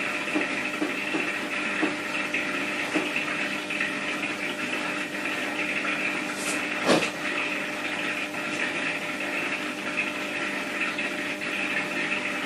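A steady rushing hum throughout, with a few light clicks and one sharper click about seven seconds in, from a metal lever door handle being pawed and pulled down by a cat.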